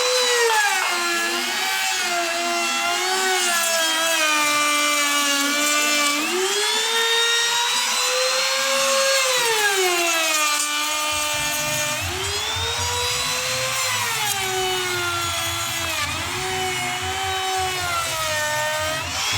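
Electric woodworking power tool with a high-speed motor, running with a whine that sags in pitch for a second or two at a time as it bites into the wood, then rises again as the load comes off. A low rumble joins in about halfway through.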